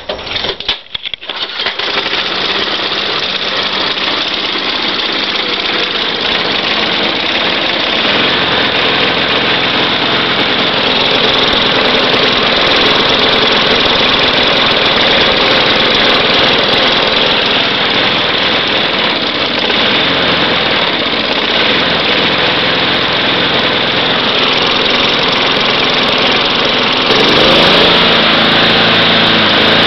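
Propane-fed Tecumseh lawn mower engine starting without priming: a couple of seconds of uneven firing as it catches, then running steadily. Near the end it speeds up, rising in pitch and getting louder.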